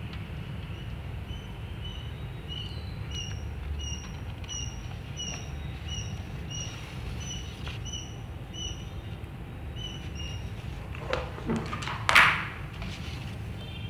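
A sheet of paper crinkling and rustling as it is lifted, in a few sharp crackles about a second before the end, the loudest sound here. Before that, a short high chirp repeats evenly nearly twice a second over a steady low hum.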